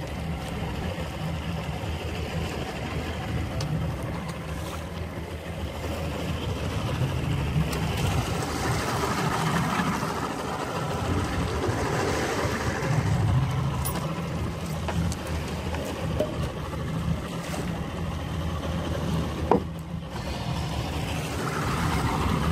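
Boat's outboard motor running steadily at idle, a continuous low rumble under wind and water noise. A single sharp click about twenty seconds in.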